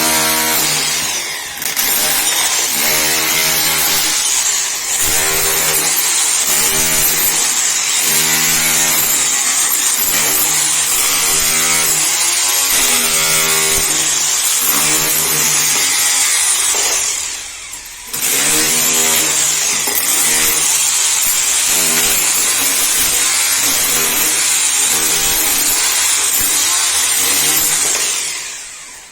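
KEN 6110B diamond core drill running under load, its 76 mm diamond core bit grinding into reinforced concrete. A loud whine and grind pulses about once a second. It breaks off briefly about two-thirds of the way through, picks up again, then dies away near the end.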